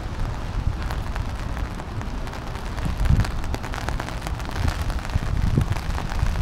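Steady rain with close drops pattering, and wind buffeting the microphone in gusts that swell about three seconds in and again near the end.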